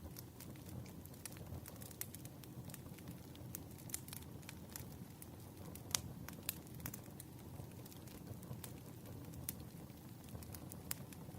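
Campfire crackling: a steady low rush of burning wood with irregular sharp pops and snaps, the loudest pop about six seconds in.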